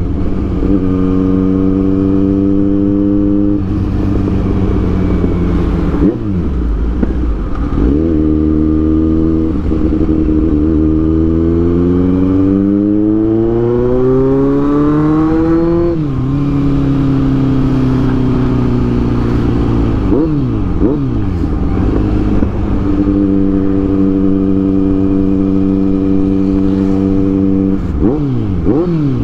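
Kawasaki Z900's inline-four engine under way at road speed. The engine note holds steady, dips briefly a few times as the throttle is rolled off, and near the middle climbs smoothly for several seconds under acceleration before dropping back sharply.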